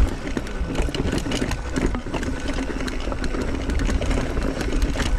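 Mountain bike on a rocky dirt trail: the rear freehub ratchets in a steady buzz while the rider coasts, with frequent clicks and knocks as the bike rattles over rocks and low wind rumble on the mic.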